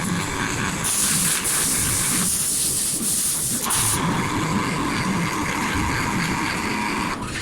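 Electric welding arc hissing and crackling, a steady sizzle held for several seconds that breaks off briefly near the end.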